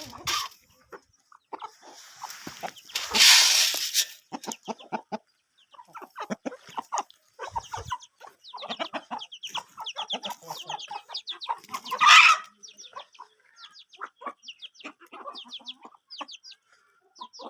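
Domestic chickens clucking and calling in short repeated notes, with a loud noisy burst about three seconds in and a loud call about twelve seconds in.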